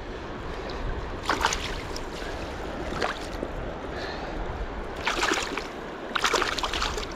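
River water running steadily, with several short splashes as a small rainbow trout thrashes in the shallows.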